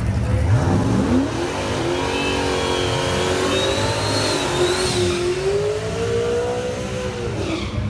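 Car's LS V8 engine accelerating hard. Its pitch climbs steeply about half a second in, then wavers up and down at high revs before dropping near the end.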